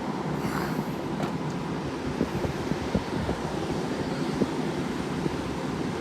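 1960s Westinghouse window air conditioner's fan running steadily on high cool, with the compressor not kicking on.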